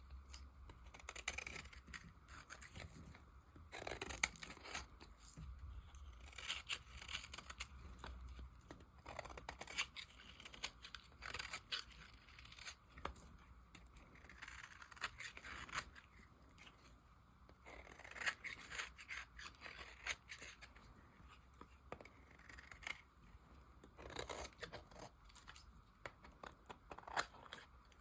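Dry bar soap being cut and carved with a blade: irregular crisp crunching cuts and short scrapes as the hardened soap breaks away.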